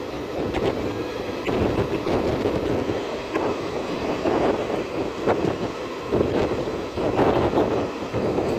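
Passenger train coaches running at speed: a steady rumble of wheels on rail with irregular sharp knocks and clatter, heard from an open coach doorway.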